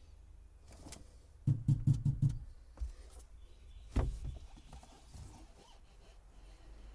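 Knocks and clunks from old boat wiring being pulled out and handled: a quick run of about five knocks, then a single sharper knock about four seconds in.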